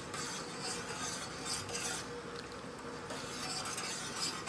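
Metal spoon stirring milk as it heats in a stainless steel pot, scraping and clinking against the pot every so often.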